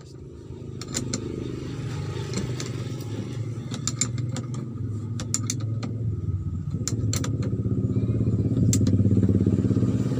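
Sharp metallic clicks and clinks of a wrench working on a car battery's terminal clamp, over the steady running of another vehicle's engine that grows louder toward the end.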